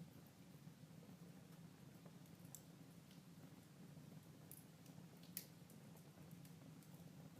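Faint crackling of a fireplace fire: a few scattered soft pops, the sharpest about five and a half seconds in, over a low steady hum.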